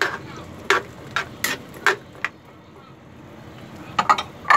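A spatula knocking against an aluminium wok while diced carrots are stirred into pork and potatoes in broth: about six sharp clinks in the first two and a half seconds, then a quick cluster of knocks near the end.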